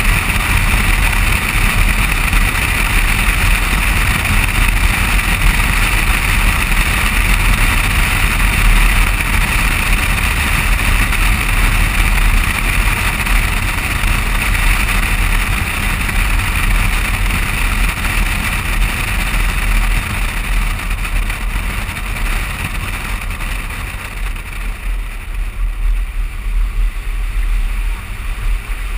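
Wind rushing over a camera mounted on the outside of a moving vehicle, mixed with tyre and road noise and a steady low rumble; it eases somewhat over the last few seconds.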